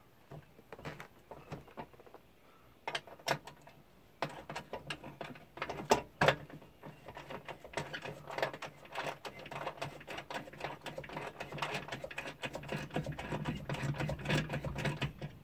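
Socket ratchet clicking in quick, irregular runs as bolts on the sheet-metal ceiling assembly of a camper's rooftop air conditioner are worked loose. A low steady hum builds underneath from about halfway.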